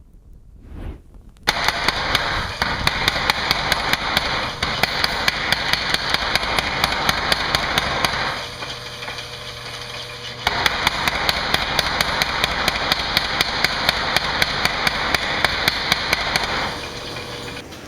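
Rapid, evenly spaced hammer blows on hot steel, about four a second, over a steady roar, forging the head of a splitting maul. The blows and roar ease off for a couple of seconds midway, then resume.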